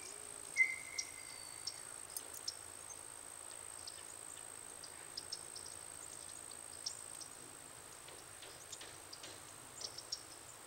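Quiet outdoor ambience: a steady faint high whine, like insects, with scattered short high chirps throughout and one brief held tone about half a second in.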